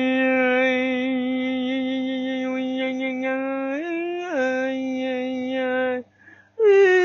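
A woman's voice toning long, wordless held notes in a chant-like way. The pitch steps up briefly about four seconds in and drops back, breaks off for a breath near six seconds, and comes back on a higher note near the end.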